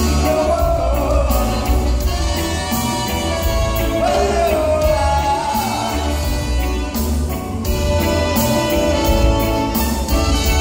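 Live reggae band playing loudly over the hall's PA, with heavy bass and a steady beat, and a sung vocal line over it.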